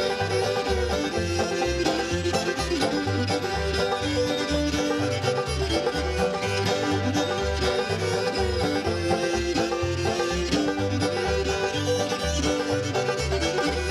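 Old-time string band playing a tune: banjo, guitar and fiddle over a steady bass line.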